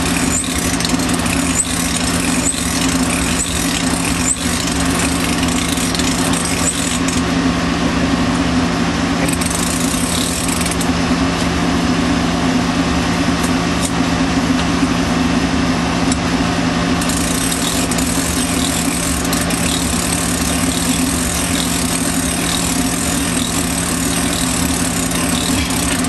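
Steady motor hum from a cordless drill turning the arbor of a mainspring winder, with a few faint clicks early on.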